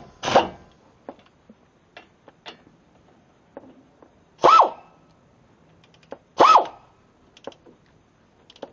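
Air ratchet: a run winds down with a puff of air at the start, then two short trigger pulls about two seconds apart, each a quick whine that rises and falls. Light metallic clicks of the socket and tools come in between.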